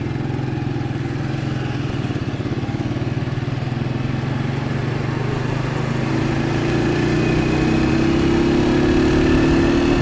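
Motorcycle engine running steadily with a fast even pulse while being ridden, with road and wind noise on the bike-mounted phone. About six seconds in, a higher engine note joins and the sound grows louder.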